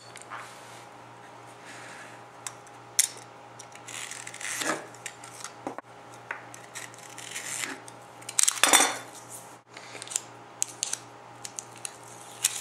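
Irregular clinks, taps and clattering of small hard objects being handled and set down on a hard surface, with a couple of longer scraping, rustling bursts, over a steady low hum.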